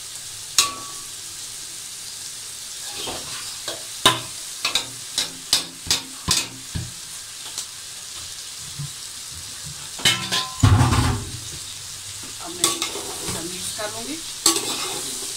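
Frying chicken and vegetables sizzle steadily in an aluminium pot while a metal spatula scrapes and clinks against the pot and a steel plate as boiled rice is pushed in. A series of sharp clinks comes in the middle, and a heavier knock about ten and a half seconds in is the loudest sound.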